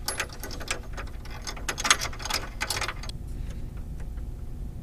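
Quick light clicks and taps of a plastic emblem and its small brackets being handled and pushed into a plastic honeycomb grille insert by hand, stopping about three seconds in.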